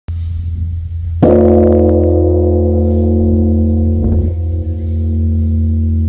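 Large bronze Korean temple bell (beomjong) struck once with its hanging wooden log striker about a second in. A deep hum is already sounding, and after the strike a stack of steady ringing tones hangs on.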